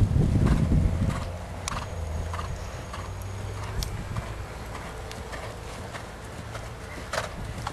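Hoofbeats of a ridden horse on a sand arena, with scattered sharper clicks; a loud low rumble during the first second or so dies away after it.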